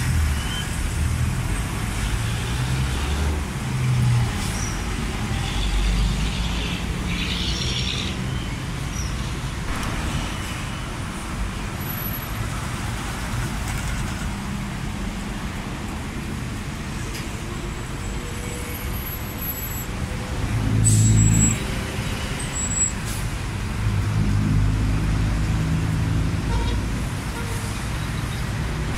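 Busy road traffic with buses' engines idling and pulling away among passing cars. The loudest moment is an engine rumble swelling briefly about two-thirds of the way through.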